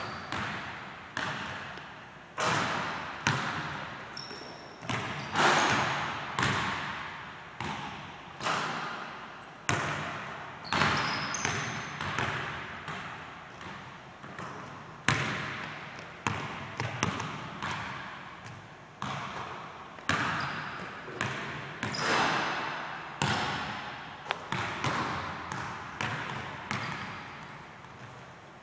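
Basketball bouncing on a hardwood gym floor, sharp bounces about once a second at an uneven pace, each ringing out in the gym's long echo.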